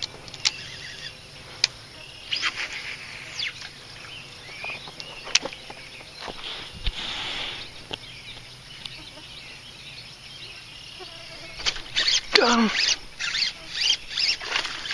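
Fishing tackle handling: scattered clicks and rustles, then from about twelve seconds in a dense run of quick clicks and scrapes as a bass is hooked and fought.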